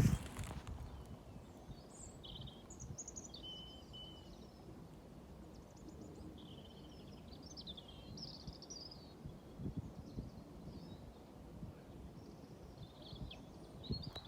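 Small birds singing and calling in short chirping phrases on and off, over a steady low background noise.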